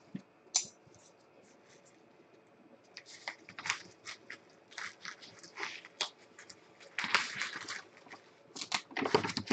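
Bubble wrap and plastic packaging crinkling and rustling in short, irregular bursts as it is handled. The crinkling thickens from about three seconds in and is densest around seven seconds.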